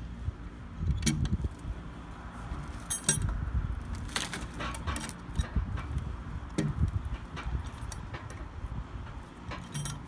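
Scattered metal clinks and dull knocks from a cant hook biting and levering a log as it is rolled across a timber log bunk toward the sawmill, with one ringing clink about three seconds in.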